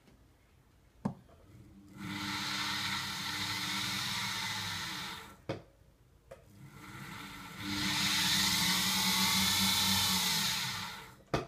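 Emco Unimat 3 milling machine's motor and belt-driven spindle run twice, each time for about three seconds, with a steady hum and a higher whine. The second run builds up gradually and is louder. Sharp clicks come before the first run, between the runs and after the second.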